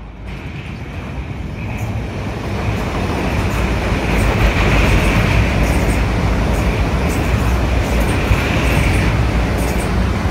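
DB Class 430 S-Bahn electric multiple unit, two units coupled, passing close by on a steel truss railway bridge. Its rumble grows over the first few seconds and then holds loud and steady, with a steady high whine above it and faint clicks.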